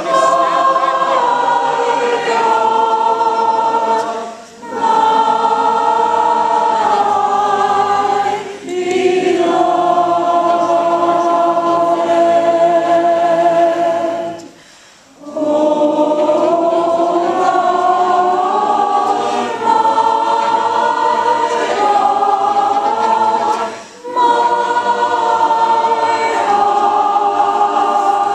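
A choir singing a cappella in sustained phrases, pausing briefly for breath between phrases, about four times.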